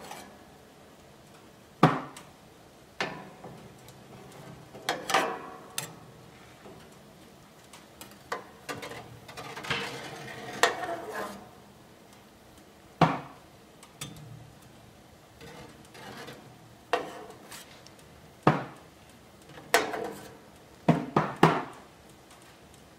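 Slotted kitchen spoon clinking and knocking against the maple syrup evaporator pan while foam is skimmed off the boiling sap: sharp clinks and scrapes at irregular intervals, a few seconds apart.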